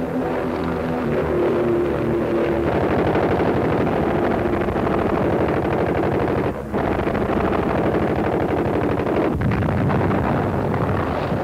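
Propeller warplane engine running loud and rough, a dense rapid rattle with a brief drop about six and a half seconds in, on a worn 1940s newsreel soundtrack.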